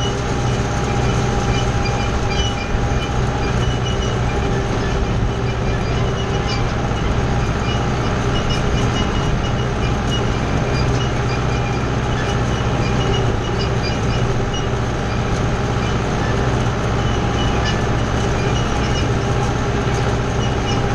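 Kubota tractor's diesel engine running steadily at working speed while towing a wheel rake through cut hay.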